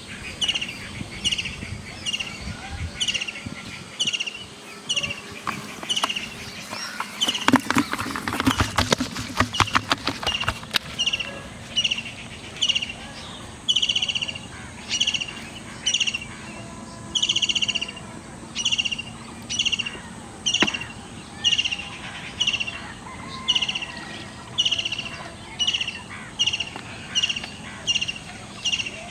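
A bird calling with one short high note over and over, evenly, about once every three-quarters of a second. A burst of rapid clattering clicks runs from about seven to eleven seconds in.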